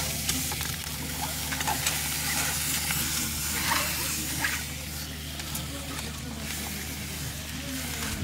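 Hot stones sizzling and hissing against the meat inside a carcass being stuffed for boodog, with steam escaping. The hiss is strongest about one to four seconds in, over a steady low hum.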